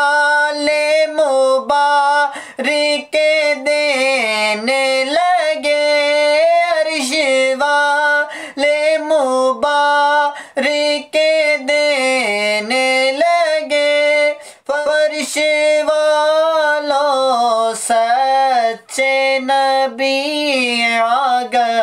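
A single high voice singing a naat, an Urdu devotional poem in praise of the Prophet, with no accompaniment. It sings long held notes that bend and ornament, with short breaks for breath between phrases.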